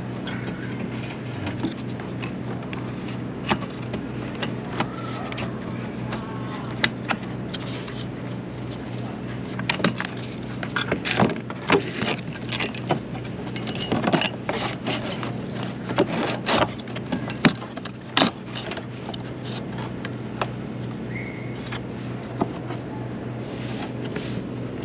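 Metal and plastic parts of a rooftop RV air conditioner clicking and knocking as they are handled and fitted back into place, busiest in the middle stretch, over a steady low mechanical hum.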